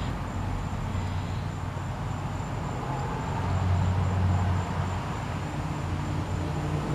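Steady low mechanical hum from running machinery or an engine, swelling slightly about halfway through.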